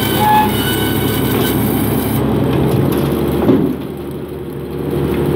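Tractor-driven log saw cutting through a log for firewood, over the steady running of the tractor engine. A knock comes about three and a half seconds in, after which the sound is briefly quieter.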